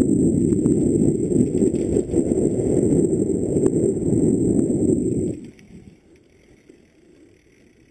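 Rumble of wind buffeting and tyres on a dirt trail from a mountain bike descending at speed, with a few light rattling clicks and a thin high whine. About five seconds in the rumble drops away sharply to a faint hiss.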